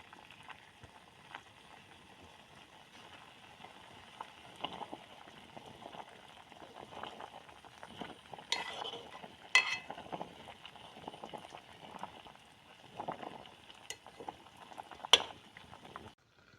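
Pot of herbal cough decoction boiling, a steady faint bubbling hiss, with a few sharp clinks scattered through it, the loudest near the end.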